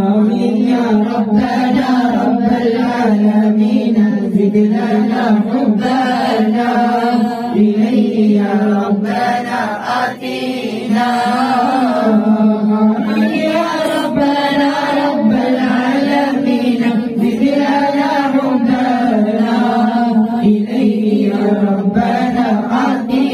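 Male voices chanting Arabic mawlid verses in praise of the Prophet, sung into a microphone, with other voices joining in. The chanting is melodic and continuous over a low held note, with a brief dip about ten seconds in.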